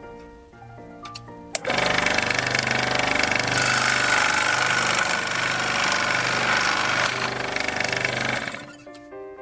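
Small benchtop power saw with a vertical blade, switched on about one and a half seconds in and running loud and steady with a high whine while it cuts a plastic model figure in two, then stopping shortly before the end.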